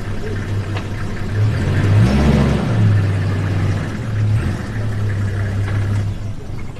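Vehicle engine running steadily at idle, with a low hum that swells louder about two seconds in and settles again.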